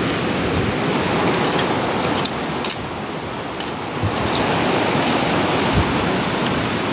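A few sharp metallic clinks with a short ring, a machete blade striking stones in gravelly ground, the loudest two between two and three seconds in. Under them runs a steady rushing noise.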